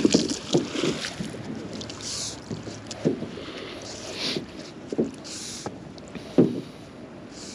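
Handling noise aboard a small boat while magnet fishing: scattered knocks and bumps on the hull, with several short hissing rushes.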